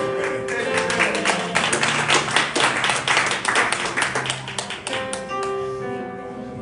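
Hands clapping rapidly for a few seconds over soft worship music with held keyboard chords; the clapping fades out about five seconds in while the chords ring on.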